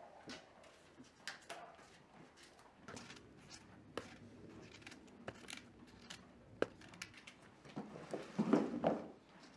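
Small knife peeling and slicing fruit by hand: faint, scattered cutting clicks and scrapes, with one louder sound lasting about a second near the end.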